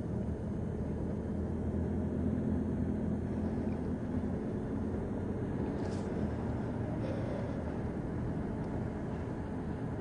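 Steady low rumble of a car on the move, engine and road noise heard from inside the cabin, with a brief click about six seconds in.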